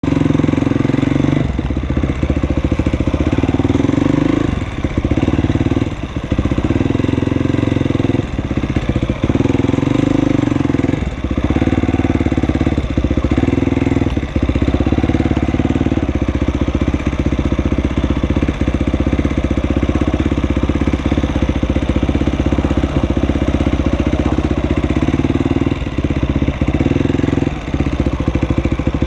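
Supermoto motorcycle engine running at low revs as it rolls along and idles, heard from the rider's position. A few brief dips in the sound come in the first half, then it runs steadily.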